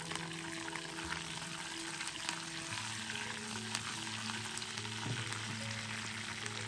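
Mustard seeds, dried red chillies and curry leaves sizzling and crackling in hot sesame oil in a small pan, with many small spitting pops: a tempering (tadka) frying.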